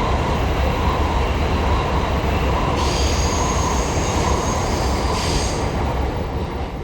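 A Shinkansen train running past on the tracks: a loud, steady rumble and rush of wheels, with a thin high squeal in the middle, fading as it draws away near the end.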